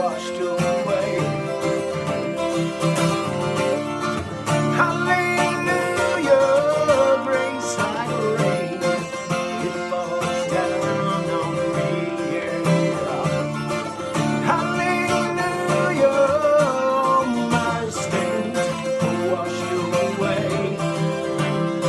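Guitar music: a gospel song played on guitar, with a melody line rising and falling over sustained chords.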